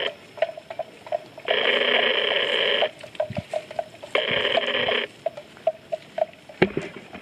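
A loud buzzing call twice, about a second and a half in and again about four seconds in, each lasting about a second. Between the calls come short, hollow clonks from a wooden bell hung on a grazing water buffalo's neck.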